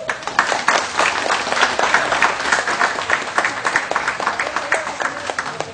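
Audience applauding, a dense patter of many hands clapping that starts suddenly and eases off a little near the end.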